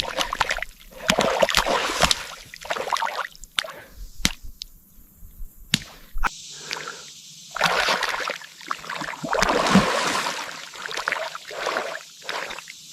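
Muddy water sloshing and squelching in irregular splashes as hands work in a mud hole, with sharp wet slaps now and then and a quieter stretch partway through.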